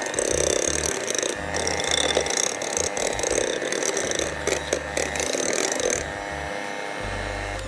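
Anex electric hand mixer running at a steady speed, its beaters churning thick chocolate cake batter in a glass bowl, with many small clicks as they knock against the glass. The clicking and churning ease off about six seconds in while the motor keeps running.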